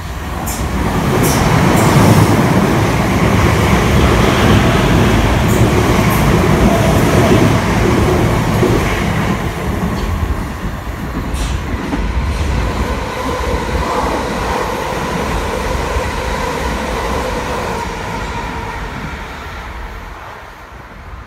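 Class 455 and Class 456 electric multiple units running together past the platform: a loud rumble of wheels on rail with a few sharp clicks and a faint steady motor whine. The rumble builds in the first two seconds and fades away near the end.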